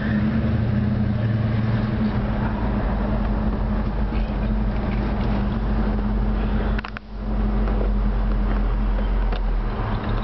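The 455 cubic-inch Oldsmobile Rocket V8 of a 1968 Olds 442 running steadily as the car drives off at low speed, heard from inside the cabin. The sound dips briefly about seven seconds in.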